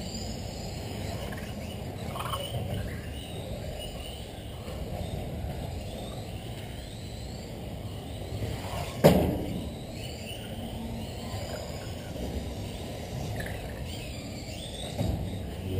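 Electric 1/10 RC cars running on an indoor carpet track, their motors whining in faint rising and falling glides as they speed up and slow down, over the hall's background noise. A single sharp bang about nine seconds in is the loudest sound.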